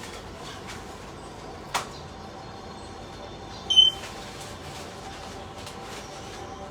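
A pet bird gives one short, high-pitched call about four seconds in, over a steady room hum. A sharp click comes a couple of seconds earlier.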